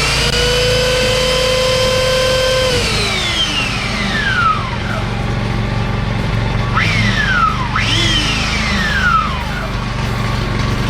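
Belt sander motor spinning up, running steadily for a couple of seconds, then winding down; past the middle it is switched on twice more in quick succession, each time only briefly before winding down again. A steady low hum runs underneath.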